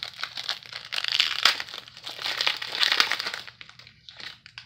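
Foil wrapper of a football trading card pack being crinkled and torn open, a dense crackling that is loudest in the middle and dies away after about three and a half seconds.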